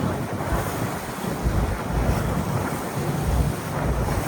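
River boat underway: a steady rush of wind and water, with wind buffeting the microphone in uneven low gusts.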